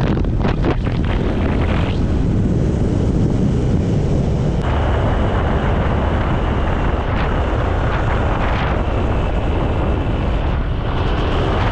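Heavy wind buffeting the microphone, a steady low rumble with no break.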